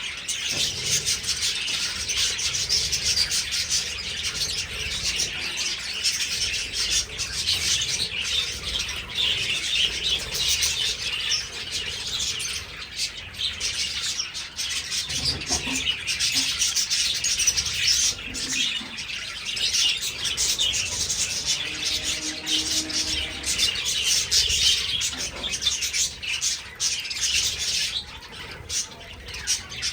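A flock of budgerigars chattering and chirping together in a dense, continuous high warble, many birds calling at once with no pauses.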